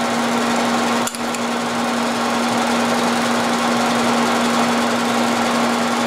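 Vertical milling machine running with an end mill turning in the spindle: a steady machine hum with a strong low tone, as the cutter is brought up to touch off on the steel shaft for a keyway cut. A brief click about a second in.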